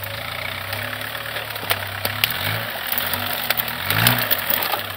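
Homemade 4x4 ATV's 1.6-litre diesel engine running under load and revving up twice, hardest about four seconds in, while branches crack sharply under the wheels.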